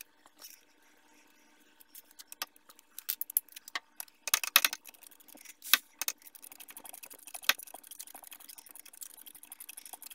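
Hand ratchet clicking as the hub-to-knuckle Allen bolts are run in: scattered metal clinks at first, then a fast, steady run of small ratchet clicks from about halfway.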